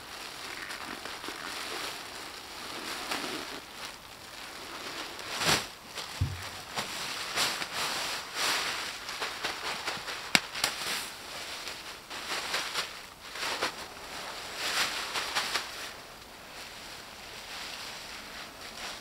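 Sacks of fallen leaves being handled and emptied, the leaves rustling and crackling as they are tipped out and spread by hand. Sharp snaps come about five and a half and ten seconds in, with a dull thump just after six seconds.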